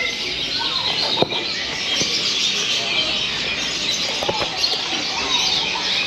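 Many caged birds chirping and twittering together in a dense, steady chorus. A few short, sharp clicks cut through it, the loudest about a second in.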